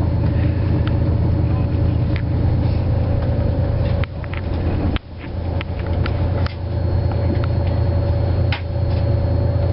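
Passenger train running at speed, heard inside the carriage: a steady low rumble with a faint steady whine and scattered short clicks. The rumble drops away briefly about four and again five seconds in.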